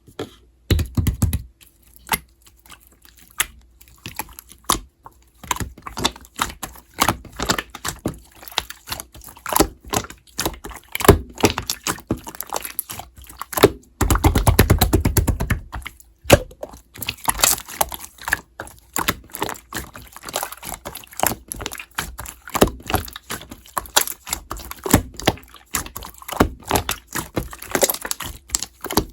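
Slime being squished and pressed by hand, giving many irregular crisp clicks and small pops, with a denser, deeper squelch lasting about two seconds around halfway.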